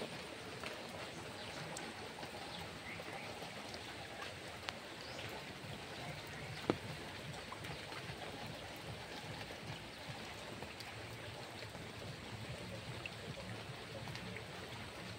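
Steady hiss of water, with scattered small ticks and one sharp click about seven seconds in.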